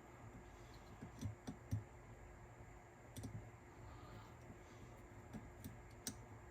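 Scattered light clicks and taps of small metal parts and tools being fitted into a cassette deck's head-carriage mechanism: a cluster of clicks about a second in, a couple around three seconds, and a few more near the end, over a faint steady hum.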